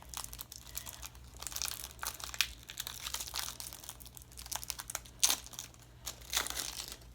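Foil wrapper of a Pokémon card booster pack being torn open and crinkled in the hands: irregular crackling with a couple of sharper snaps.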